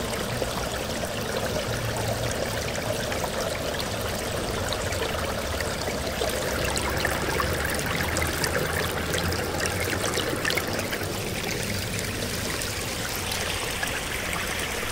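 Small brook babbling over stones: a steady rush and trickle of shallow water.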